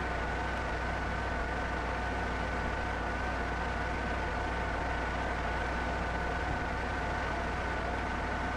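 Vertical turret lathe running steadily during a turning cut: a constant machine hum with several steady whining tones over a noisy hiss.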